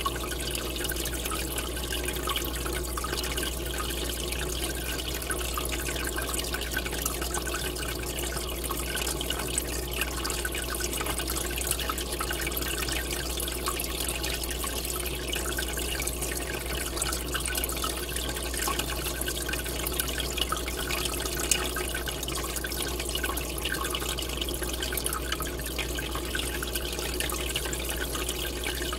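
Steady splashing and bubbling of water streaming into an aquarium tank from its inflow, over a steady low hum.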